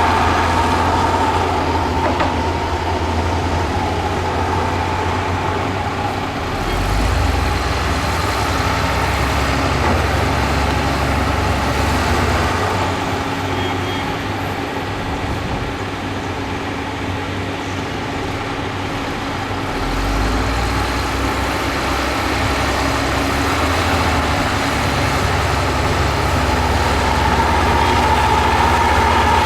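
Heavy earthmoving machinery's diesel engines running steadily. The low engine note shifts about six seconds in and again near twenty seconds, as the load on the machines changes.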